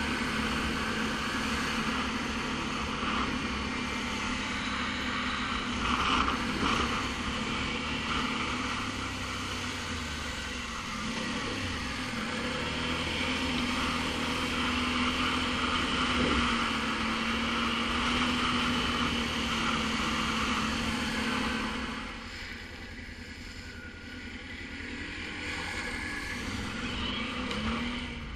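ATV engine running under way with a steady note; about 22 seconds in it drops and quietens, then climbs again near the end.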